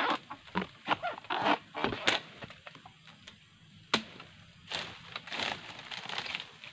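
Oil palm harvesting pole jabbed into the base of a low palm's crown, giving a quick series of short cutting strikes. About four seconds in comes a sharp crack, then palm fronds rustle as they are pushed aside and handled.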